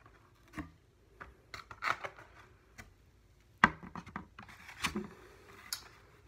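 Foam clamshell takeout box being handled and opened: a string of short scrapes and squeaks of foam rubbing on foam, with one sharp snap a little past halfway.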